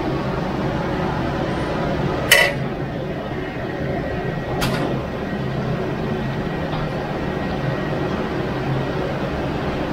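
Steady roar of a large wok over a strong gas flame, with shredded ginger cooking in the sauce. A metal spatula clinks sharply against the wok about two seconds in, and more lightly near five seconds.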